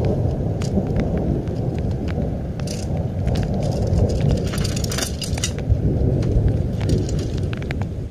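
Heavy rain with a loud low rumble of wind buffeting the microphone, and scattered sharp ticks throughout; it cuts off suddenly at the end.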